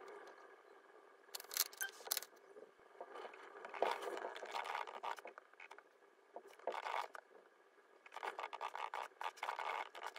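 Scratchy scraping sounds in several bursts of quick, short strokes, a second or two apart.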